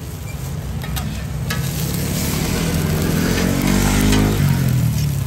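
Pan-fried buns sizzling in oil on a large round iron griddle, with a couple of metal clicks from tongs and spatula. A low hum swells louder about three to four seconds in, then drops away near the end.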